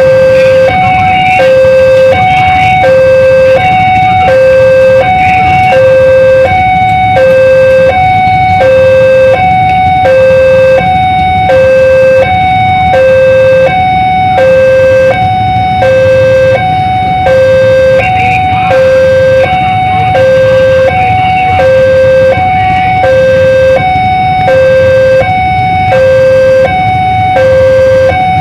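Railway level-crossing warning alarm sounding a loud two-tone electronic chime, a low and a higher note alternating evenly, each held for about two-thirds of a second, without a break.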